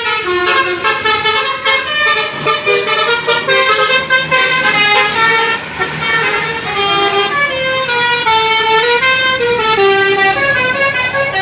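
Bus basuri telolet horn, a multi-trumpet air horn playing a melody: several tones sound together and step from note to note, with a few sliding notes near the end.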